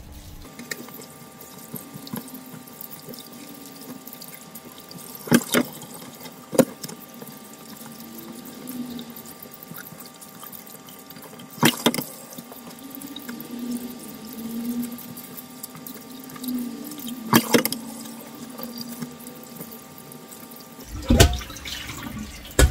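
Kitchen tap running steadily into a stainless steel sink as raw chicken pieces are rinsed by hand in a plastic colander set in a steel bowl. Sharp knocks come every few seconds, mostly in pairs, from the colander and bowl being handled against the sink, with the loudest near the end.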